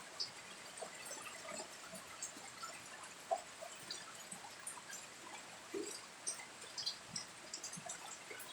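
Rain falling, with scattered drops dripping and ticking at irregular intervals.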